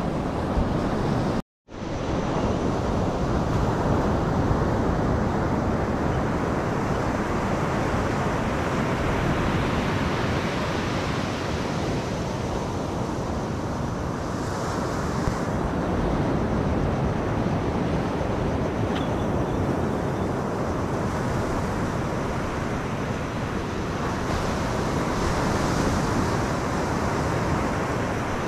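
Surf breaking and washing onto a sandy beach, mixed with wind on the microphone, as a steady rushing noise. The sound cuts out completely for a moment about a second and a half in.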